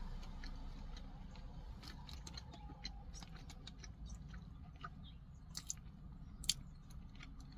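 A person chewing a sauced chicken nugget close to the microphone, with small wet mouth clicks and smacks scattered throughout and a couple of sharper clicks about two-thirds of the way through.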